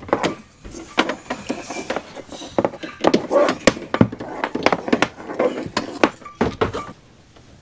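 Irregular knocks, thumps and clatter of belongings being handled and put away inside a camper, several sharp hits a second, which stop about seven seconds in.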